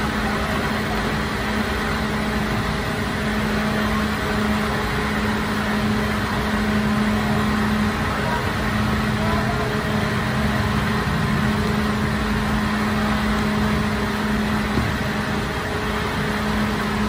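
Bakery machinery running with a steady, unchanging hum.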